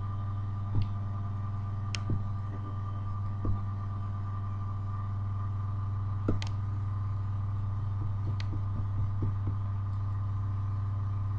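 Steady low electrical hum, picked up through a computer webcam's microphone, with a few soft clicks and knocks scattered through it.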